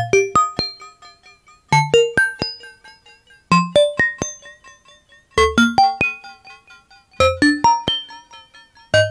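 Polyend Synth's PMD physical-modelling engine playing struck, ringing bell-like notes. Quick clusters of several notes fade out and repeat about every two seconds.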